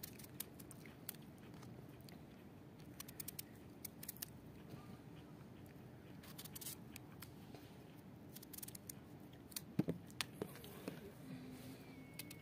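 Kitchen knife cutting through peeled raw turnips: faint, irregular crisp clicks and snaps as the blade goes through the hard flesh, some in quick little clusters.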